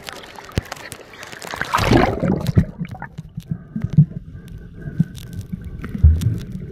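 Water splashing and rushing over the microphone as the camera goes under about two seconds in, then the muffled, bass-heavy sound of a microphone underwater, with dull thumps from swimming movements or handling.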